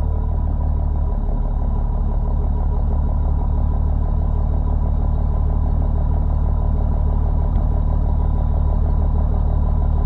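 Cummins diesel engine idling steadily, with the turbocharger's steady whistle riding over the low engine drone.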